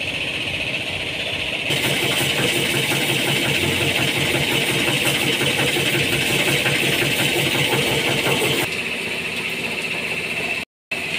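A jet of water from a washing hose sprays the underside of a Porsche Cayenne, a loud hiss from about two seconds in to about nine seconds. Under it the car's engine idles steadily.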